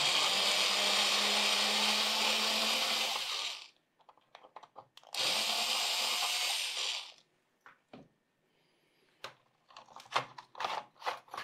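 Small handheld electric screwdriver running twice with a steady motor whine, backing out the screw that holds a laptop's optical drive: about three and a half seconds, then after a short pause about two seconds more. A few light clicks and taps follow as the screw and drive are handled.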